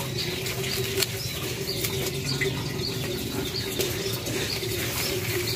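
A small bird chirping over and over, short high chirps about twice a second, over a steady low hum.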